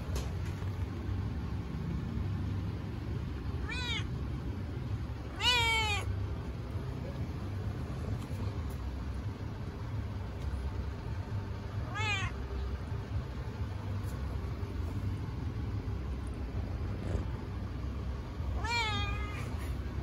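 A domestic cat meowing four times, several seconds apart; the second meow, about five and a half seconds in, is the longest and loudest. A steady low hum runs underneath.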